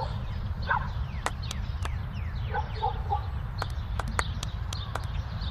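Horses walking past on a dirt track, their hooves giving scattered sharp clicks over a steady low wind rumble on the microphone. Birds chirp, and short clucking calls sound about a second in and again around three seconds in.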